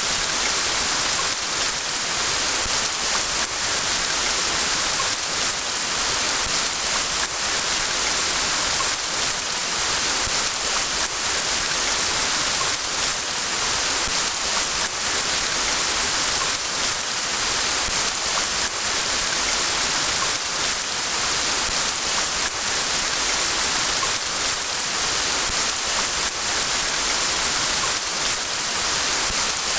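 Steady rain falling in a forest: a dense, even hiss of many drops that does not change.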